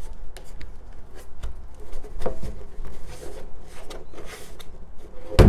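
A hand rubbing and brushing over the side of a plastic rain barrel, with small scattered clicks and soft scraping. One sharp, loud knock comes near the end.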